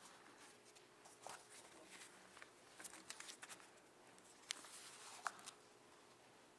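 Near silence: room tone with a faint steady hum and a few faint, scattered clicks and rustles.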